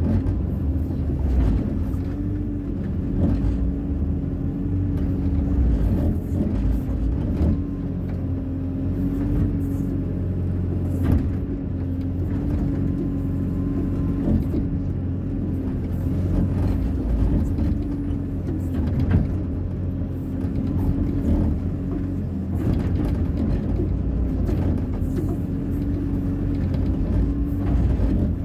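Hyundai 140 wheeled excavator's diesel engine running steadily with a constant low hum, and a few short knocks now and then, about 11 and 19 seconds in.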